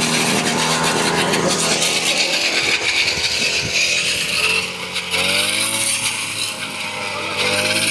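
Engine of a wheat-harvesting machine running steadily under a strong high hiss; from about five seconds in its pitch dips and rises.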